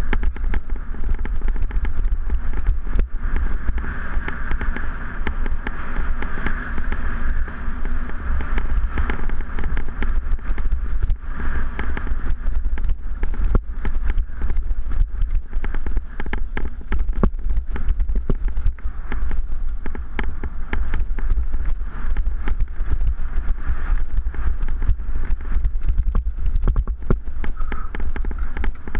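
Mountain bike ridden fast over a rough dirt trail: a constant clatter of knocks and rattles as the bike bounces over bumps, over a steady low rumble of wind buffeting the microphone.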